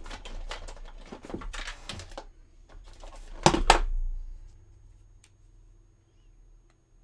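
Things being handled on a workbench: a run of light clicks and rustles, then two sharp knocks close together about three and a half seconds in, after which it goes quiet.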